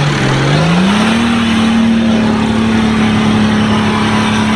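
A 4x4 off-road vehicle's engine under throttle: the revs climb about a second in and are then held steady.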